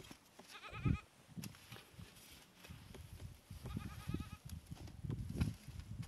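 Two quavering bleats from the grazing flock, one about a second in and one near the middle. Between them, a slotted metal spatula scrapes and knocks against a metal tray of ash and embers as the ash is cleared off bread baking underneath, with a low thump just before the first bleat ends.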